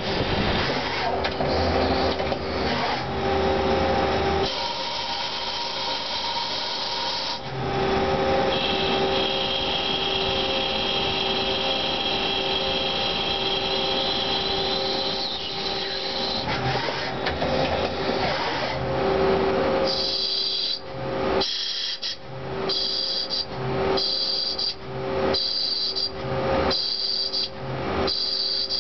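CNC lathe cutting a SAE 660 bronze part: the spindle and drives run with steady hum tones under the noise of the tool in the metal. A high whine holds for several seconds partway through. In the last third the cutting comes in short repeated passes, about one a second.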